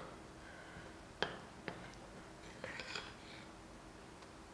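A metal spoon stirring a thick chocolate icing paste in a glass bowl: soft scraping with a few faint clicks of the spoon against the glass, one just over a second in and a small cluster near the middle.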